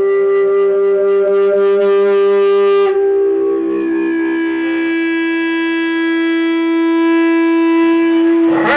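Instrumental music of long, steady held notes. The main note steps a little lower about three seconds in, over a fast ticking of about three or four clicks a second in the first three seconds, and a short knock comes near the end.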